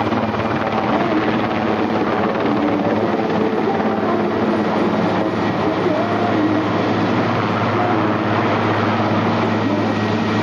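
Aérospatiale SA 330 Puma twin-turbine military helicopter flying a display pass, a loud, steady rotor and turbine drone with a low hum underneath.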